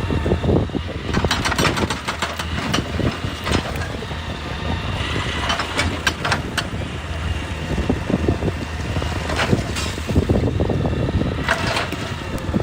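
Excavator's diesel engine running steadily under load, with a faint whine above it, while rock knocks and clatters repeatedly against the machine and the ground.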